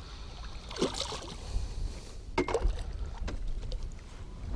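Largemouth bass splashing at the surface beside a boat while being played on the line: a few short splashes over a low wind rumble on the microphone.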